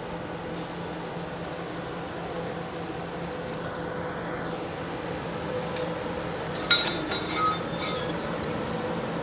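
Coupled locomotives approaching slowly on the rails with a steady running drone and hum. About two-thirds of the way in, a few sharp metallic clanks and brief ringing squeals, the loudest moment, as wheels pass over rail joints or points.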